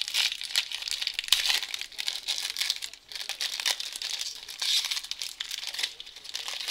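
Foil trading-card pack wrapper being torn open and peeled back off a stack of cards, crinkling and crackling, with a short lull about three seconds in.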